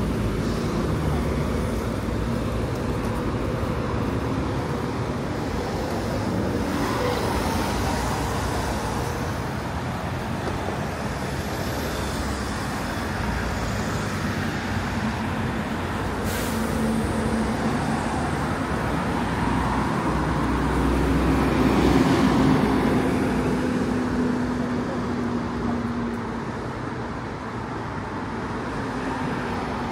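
City street traffic: a steady wash of engine and tyre noise from passing cars and buses. It swells as a louder vehicle goes by about two-thirds of the way through.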